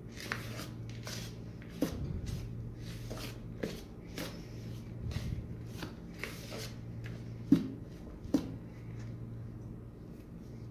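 A spoon and fingers stirring flour, yogurt and oil through chopped onion and herbs in a plastic bowl: irregular soft scraping and rustling strokes, with two sharper clicks late on. A steady low hum runs underneath.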